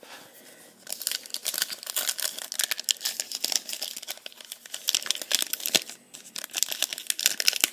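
Foil trading-card pack wrapper crinkling and tearing as it is opened by hand, a dense crackle that starts about a second in, pauses briefly near six seconds, then resumes.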